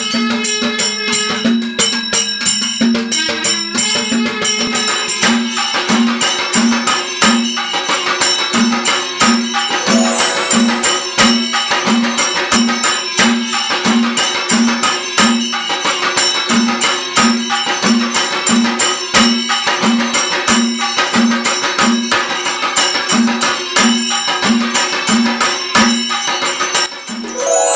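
Instrumental background music with a fast, steady beat of light percussion and a low note pulsing about twice a second.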